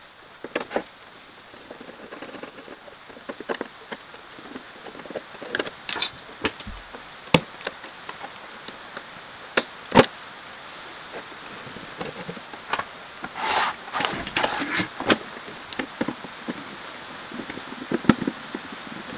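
Knocks, clinks and rubbing of parts being handled while an old rotary welding table is dismantled: scattered single knocks, a sharper knock about ten seconds in, and a run of scraping about thirteen to fifteen seconds in, over a steady hiss.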